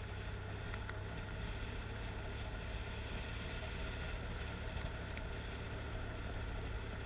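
Adventure motorcycle engine running steadily at low speed along a dirt forest track, a constant low hum under road and wind noise, with a few faint ticks.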